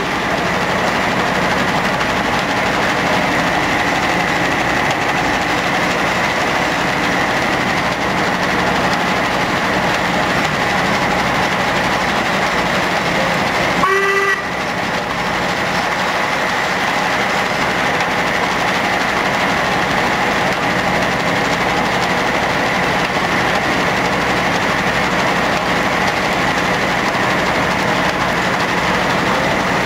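Steam machinery running steadily with a continuous hissing, mechanical noise. About halfway through comes a single short toot of a steam whistle.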